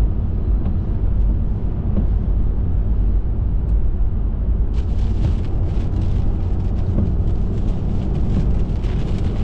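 Car cabin noise while driving at speed through a storm: a steady, heavy low rumble of road and wind noise. About halfway through, a hiss with fine crackling joins it: rain on the windscreen and body.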